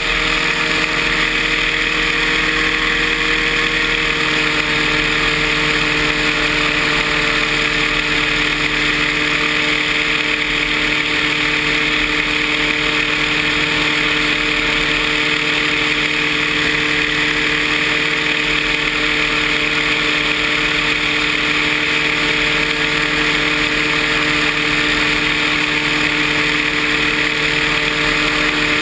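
Paramotor engine and propeller running steadily at one constant pitch, with a steady hiss over the drone.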